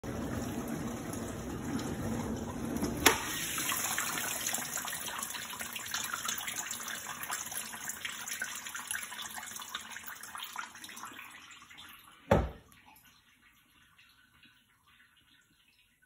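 Hotpoint dishwasher opened: water hissing and dripping inside the tub, fading away over about ten seconds. A sharp click comes about three seconds in, and a loud thump about twelve seconds in as the door is shut.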